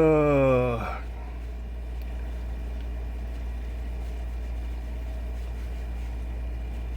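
A man's drawn-out wordless vocal sound, falling in pitch, in the first second, then a steady low hum with no other events.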